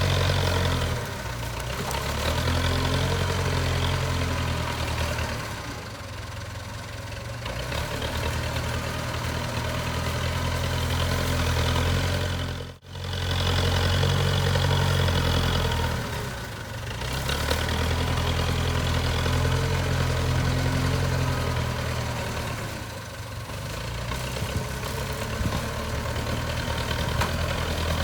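JCB 3CX backhoe loader's diesel engine running steadily, its low note easing off and coming back up several times. There is a brief break in the sound about halfway through.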